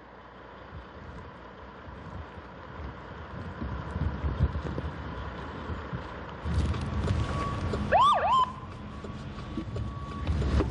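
Police cruiser pulling up: a vehicle's engine and tyres grow louder, and about eight seconds in the siren gives one short whoop that swoops up, down and up again.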